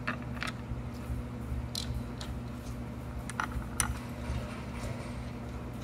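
Scattered light metallic clicks of screws being handled and threaded by hand into a mill table's end bracket, over a steady low hum.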